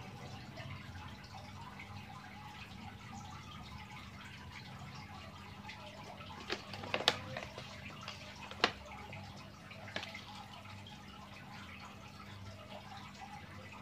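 Betta fish splashing at the water surface in plastic cups: a few sharp little plops, clustered in the middle, over a steady low hum.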